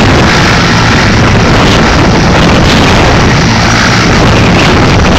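Sikorsky S-64 Skycrane helicopter running on the ground with its turbine engines and main rotor turning, a steady, very loud noise that overloads the phone's microphone.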